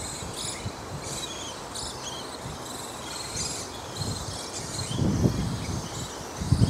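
Background wildlife chirping: many short, high calls at shifting pitches, densest in the first few seconds. A low rustling rumble swells about five seconds in and again at the end.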